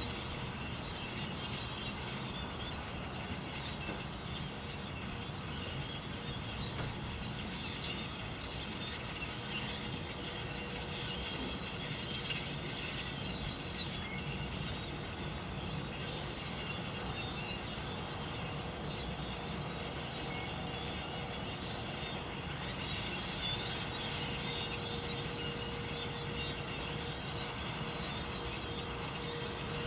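A huge flock of birds calling all at once: a dense, steady mass of overlapping chirps, with steady low background noise underneath.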